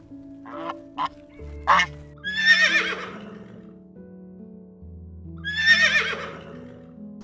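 Horse whinnying twice, each call about a second long with a wavering, shaking pitch, after a few short calls, over background music with sustained low notes.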